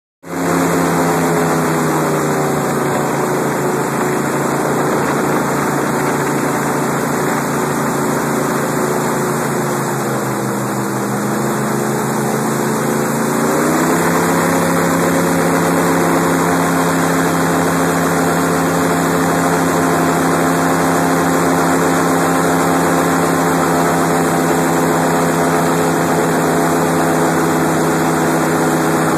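Airboat's engine and air propeller running very loud and steady under way. The pitch sags a little around ten seconds in, then climbs back up at about thirteen seconds as the throttle opens again.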